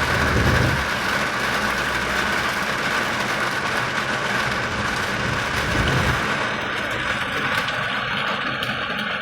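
Heavy rain falling as a steady hiss, with two brief low rumbles, about half a second in and again near the six-second mark.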